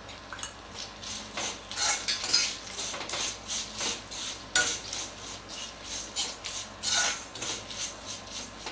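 Metal spoon stirring and scraping lemon pickle around a metal kadai, in a string of irregular scrapes and clinks, one or two a second.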